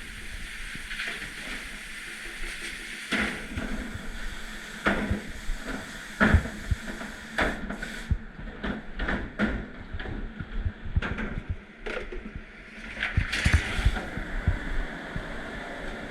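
Dish-room clatter: dishes and racks knocked and set down a dozen or so times over a steady hiss of running water or machinery.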